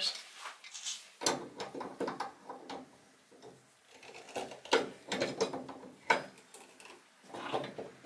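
Irregular metal clicks, taps and scrapes as a toilet's water supply-line nut is threaded onto the angle stop valve and tightened with tongue-and-groove pliers.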